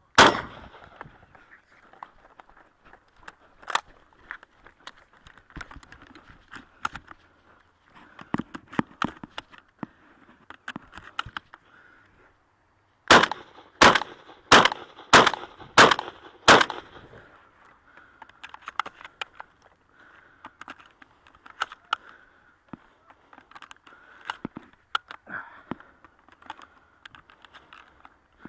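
Remington VersaMax 12-gauge semi-automatic shotgun firing. There is a loud shot at the start and another about four seconds in. About halfway through comes a rapid string of shots roughly half a second apart. Fainter sharp clicks and pops fall between the shots.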